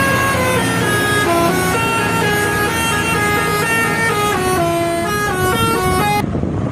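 Telolet bus horn playing a tune of held notes that step up and down, a new note every half second or so, over a low engine rumble. The tune cuts off abruptly near the end.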